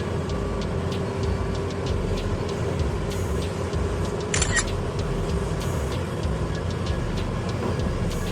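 Heavy mining machinery, a giant hydraulic excavator working with haul trucks, running with a steady, deep engine rumble. A brief high-pitched hiss or squeal comes about four and a half seconds in.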